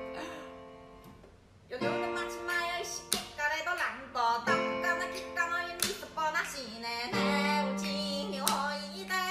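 Background music led by plucked guitar, coming in after a quiet first second or two.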